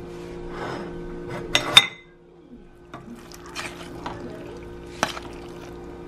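Metal spoon scraping and knocking against a stainless steel pot as stew is spooned out. There is one loud ringing clink nearly two seconds in and a few sharper knocks later.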